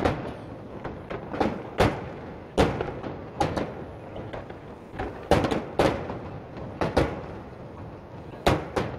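Aerial firework shells bursting in an irregular volley: about ten sharp bangs, some in quick pairs, each followed by an echoing tail.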